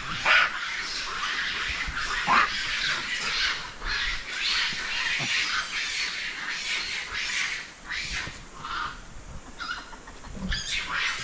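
Long-tailed macaques screaming and shrieking in a fight, a run of harsh calls one after another. They thin out for a couple of seconds and flare up again near the end.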